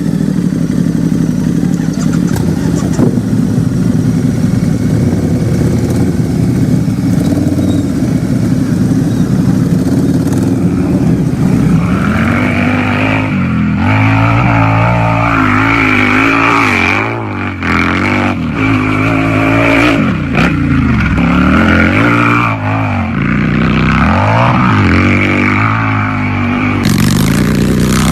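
Harley-Davidson motorcycle engine idling with a steady low note, then, about twelve seconds in, revved again and again, each blip rising and falling in pitch.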